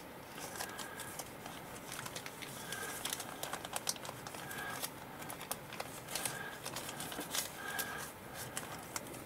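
Crinkling and rustling of a clear plastic kit bag being handled, with many small scattered crackles and clicks.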